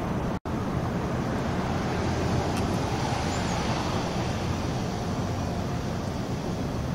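Steady outdoor background rumble and hiss with no distinct event in it. The sound drops out for an instant about half a second in.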